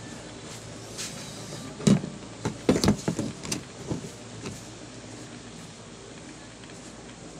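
A short run of knocks and clatter as a plastic speaker amplifier housing and its circuit board are handled against a workbench, loudest about two and three seconds in, over a faint steady hum.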